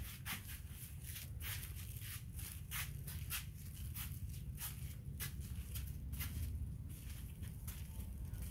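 Footsteps scuffing across a concrete and dirt yard, about two a second, over a steady low rumble.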